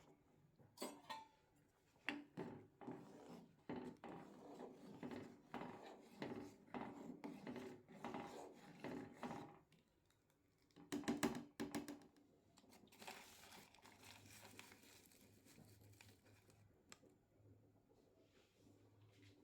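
Kitchen utensils clinking and scraping against cookware in quick, irregular strokes, with a louder burst of knocks about eleven seconds in, followed by a faint steady hiss.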